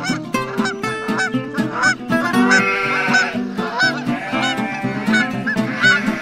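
Geese honking, many short calls in quick succession, over background music.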